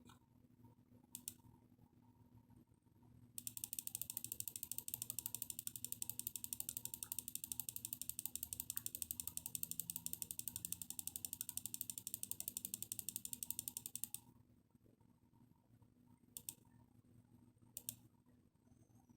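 Oklick 485MW wireless mouse: a single button click, then about ten seconds of rapid, even ticking as the scroll wheel is spun through its notches, then two more button clicks near the end.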